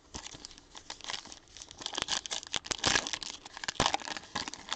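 A Donruss basketball trading card pack's wrapper being torn open and pulled apart by hand: an irregular run of crackles and rustles that grows louder about two seconds in.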